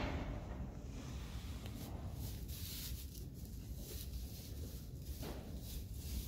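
A Friesian foal moving about on straw bedding: soft rustling and steps over a steady low rumble, with a brief burst of noise right at the start.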